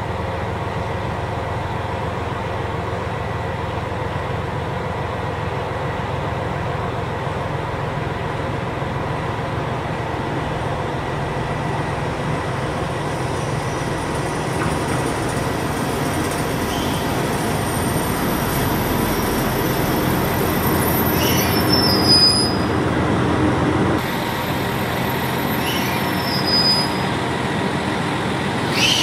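KiHa 261 series diesel express train pulling into a station: a steady diesel drone grows louder as it approaches. Short high squeals from the wheels and brakes come about three quarters of the way in and again near the end as it slows to a stop.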